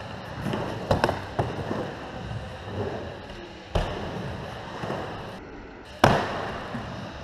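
Skateboard wheels rolling and rumbling across a bowl's surface, with sharp clacks of the board about one, four and six seconds in. The loudest clack, about six seconds in, comes as the board hits the metal coping at the bowl's lip.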